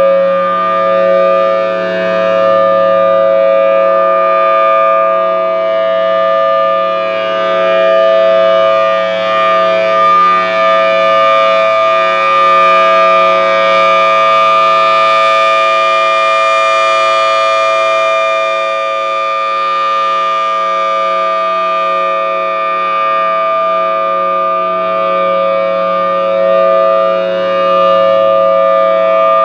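Federal Signal Thunderbolt 1000T outdoor warning siren sounding its steady Alert signal: a held two-note chord with no rise or fall in pitch. Its loudness swells and fades slightly as the rotating head turns.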